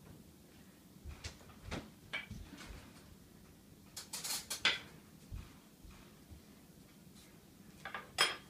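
Scattered knocks and clatter of kitchen things being handled, with a short rattling burst about four seconds in and sharp clinks near the end.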